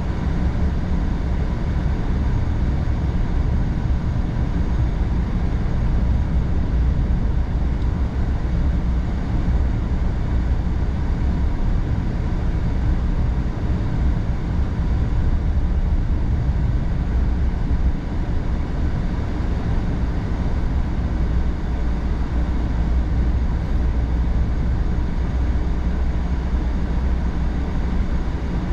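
Car driving on a snowy road, heard from inside the cabin: a steady low rumble of tyres and engine.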